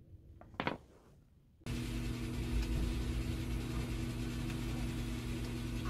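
A faint tap, then about a second and a half in a car engine starts being heard idling steadily, a constant low hum from inside the cabin.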